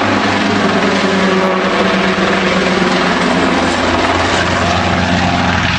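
Small helicopter in flight, its rotor blades chopping quickly and steadily over the hum of its engine.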